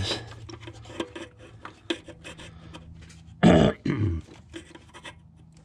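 Scattered small clicks and taps of pliers working at a plastic wire clip in the engine bay. A short, loud grunt of effort comes about three and a half seconds in.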